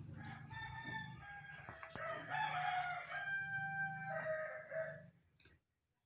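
A bird calling: one long call in several pitched steps over a steady low hum, cut off abruptly about five and a half seconds in.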